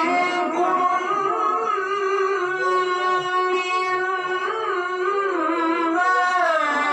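Quran recitation by a male qari: one long, high melodic phrase held in a single breath, the pitch wavering through small ornamental turns.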